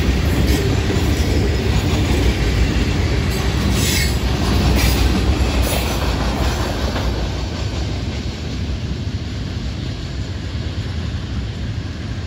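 Freight train's rock hopper cars rolling over the rails, with a few brief sharp high noises from the wheels about three to six seconds in. The sound grows fainter from about seven seconds in as the end of the train draws away.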